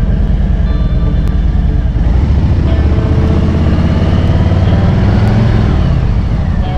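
Motorcycle engine pulling under throttle, its pitch climbing for a few seconds and then dropping back near the end as the throttle eases.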